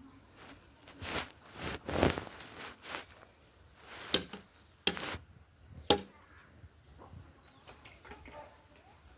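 Hands picking lice from hair: rustling strokes through the hair, then three sharp fingernail clicks about a second apart in the middle, with fainter small clicks after.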